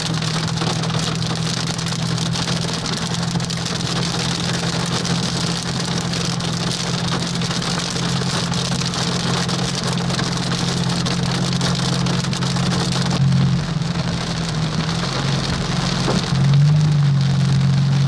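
Large hailstones hitting the car's roof, windshield and body in a dense, steady rattle, heard from inside the cabin while driving. Underneath runs the car's steady low engine hum, which shifts a little near the end.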